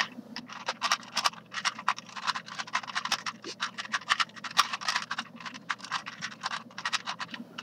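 ShengShou 2x2 Rubik's-type cube being turned quickly through a scramble: a rapid, uneven run of plastic clicks and scrapes as the layers snap round.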